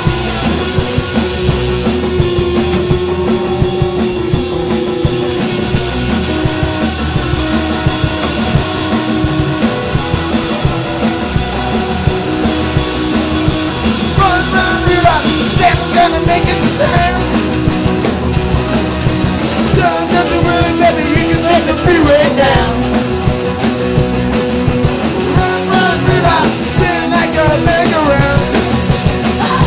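Rock music with a punk sound: electric guitar, bass and drums playing steadily, with a voice singing from about halfway through.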